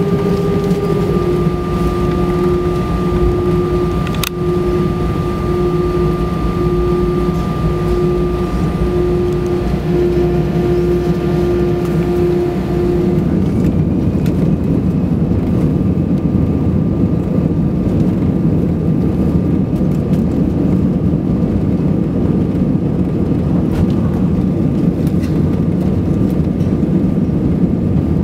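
Cabin noise aboard an Airbus A320: a steady engine and airflow rumble with a pulsing tone while the jet rolls along the ground. About halfway through the pulsing tone stops and the rumble grows heavier, with a faint high whine, as the engines power up for the takeoff roll.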